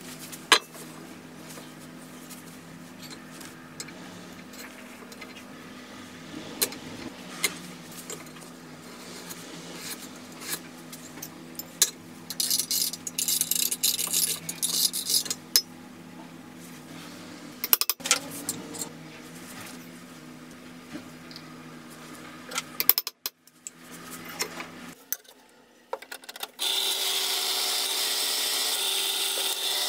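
Metal clinks and knocks as a steel anvil is fitted to its stand and bolted down with a hex key, with a stretch of rapid rasping and clattering about halfway through. Near the end a bench drill press starts up and runs steadily, drilling a steel flat bar.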